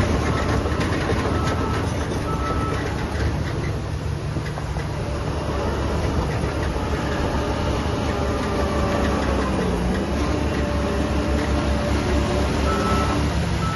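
Heavy diesel construction machinery running steadily on a work site, with the repeated beeps of a reversing alarm near the start and again near the end.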